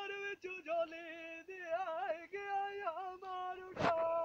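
A man singing Punjabi dholay (dohray) unaccompanied, in long held notes with wavering ornaments and short breaks between phrases. A brief loud noise cuts in near the end.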